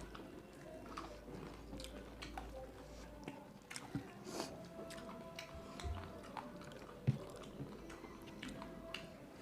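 Close-up eating sounds: people chewing and biting food, with soft scattered clicks of mouth and utensils.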